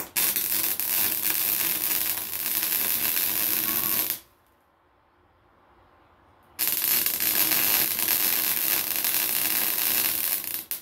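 Arc welder welding a cracked exhaust pipe, in two runs of about four seconds each that start and stop abruptly, with a short pause between them.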